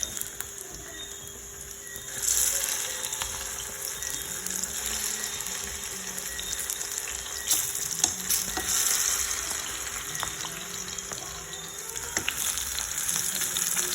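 Plantain slices frying in hot oil in a pot: a steady sizzle that gets louder about two seconds in, with a few sharp clicks and pops.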